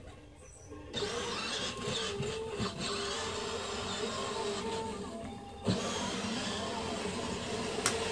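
Electric motor and gearbox of a child's battery-powered ride-on toy jeep whining as it drives over grass, cutting out briefly twice as the pedal is let off, with a sharp click near the end.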